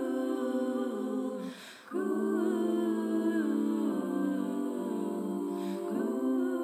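Background music of voices humming in slow, held chords, with a short break about one and a half seconds in and another near the end.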